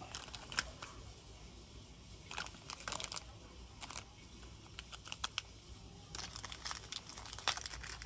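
Zippo lighters being handled: clusters of small, sharp clicks with some rustling, in several bursts.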